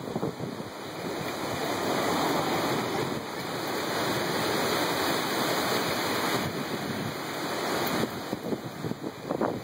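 Hurricane-force wind gusting: a loud rushing that builds over the first couple of seconds and holds, then buffets the microphone with irregular low thumps near the end.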